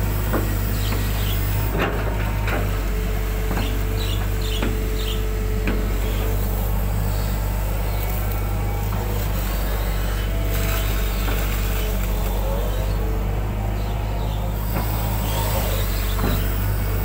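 Hitachi 120 excavator's diesel engine running steadily under load while the bucket digs mud out of a ditch, with scattered knocks and scrapes from the bucket and boom and an occasional short whine.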